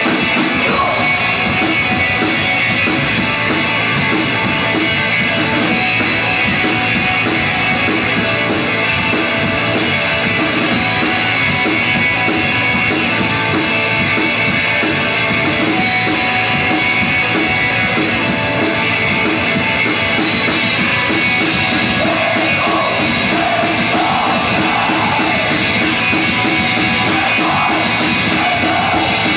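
Live heavy rock band playing loud, with electric guitar, bass guitar and drum kit. A vocalist starts yelling into the microphone about three-quarters of the way through.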